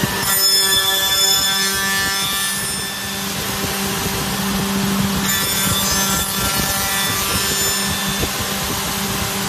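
Woodworking tenon machine's spinning cutter heads cutting into a clamped wooden workpiece, in two high whining passes of about two and a half seconds each, one at once and one about five seconds in. The spindle motors hum steadily underneath.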